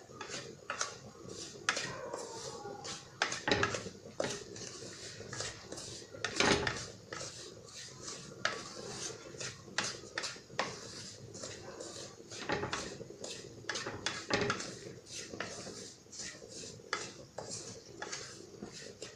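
A spatula scraping and knocking against a nonstick pan while stirring semolina roasting in ghee: irregular strokes, the loudest knock about six and a half seconds in.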